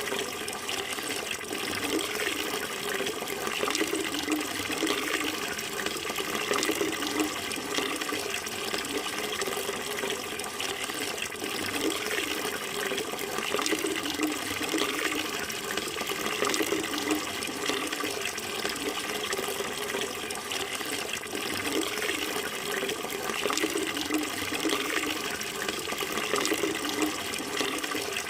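Flowing water running and splashing in a steady, unbroken rush.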